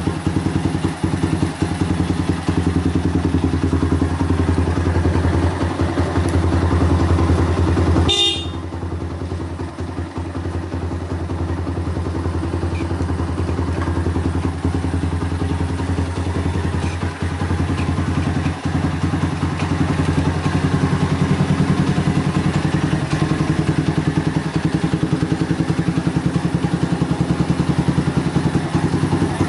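Honda Mega Pro's single-cylinder four-stroke engine idling steadily through a short open exhaust. A short beep comes about eight seconds in. After it the engine sounds a little quieter, then slowly grows louder again.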